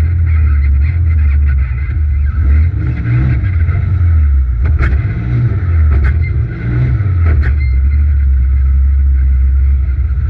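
Polaris RZR XP Turbo side-by-side's turbocharged twin-cylinder engine running hard, heard from inside the cab, its note dipping and climbing again around three seconds in and once more near seven seconds as the throttle eases and reopens. A few sharp knocks cut through about five, six and seven and a half seconds in.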